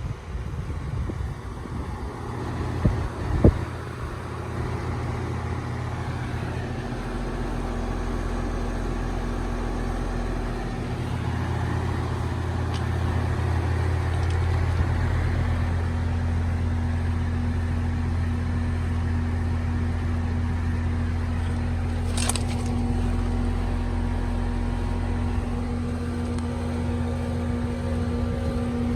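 2019 Goodman GSZ14 2.5-ton heat pump's outdoor unit running steadily: compressor hum under the condenser fan. A couple of sharp knocks come about three seconds in, and a single click about twenty-two seconds in.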